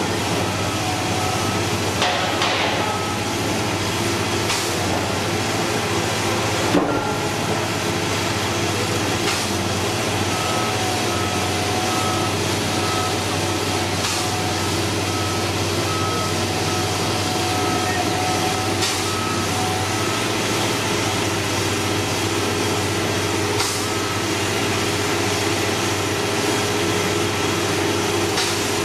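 Diesel engine of a Liebherr LB 36 pile drilling rig running steadily under load, with a repeating warning beeper for several seconds in the middle and a few sharp metallic knocks.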